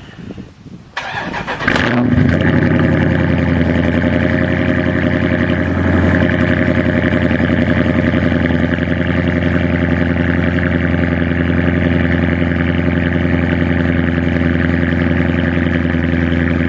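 An engine starting: uneven cranking, catching about two seconds in, then running steadily.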